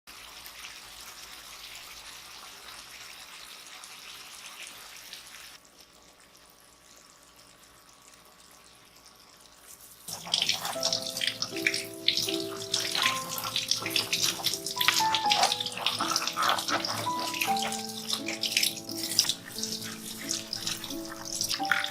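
Steady rush of water running from a kitchen tap for about five seconds, then it stops; background music starts about ten seconds in.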